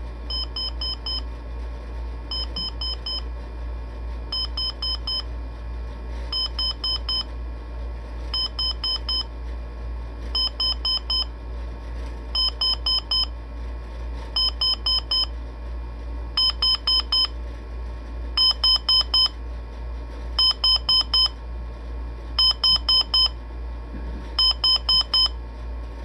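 Emerson SmartSet alarm clock's alarm beeping in quick groups of four, a group about every two seconds. The beeps get louder over the first two-thirds, as the alarm gradually rises in volume, then hold at their maximum.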